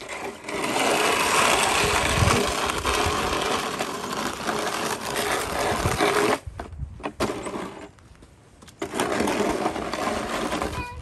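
Snow being cleared with a shovel, a long, loud scraping push lasting about six seconds, then a pause, then another scraping push starting about three seconds before the end.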